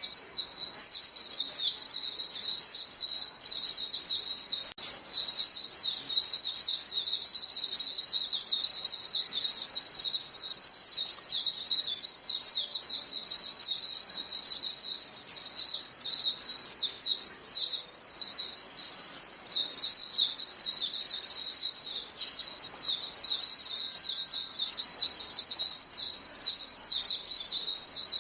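A flock of white-eyes calling to one another: a dense, unbroken stream of quick, high chirps and twitters from many birds at once, overlapping without a pause.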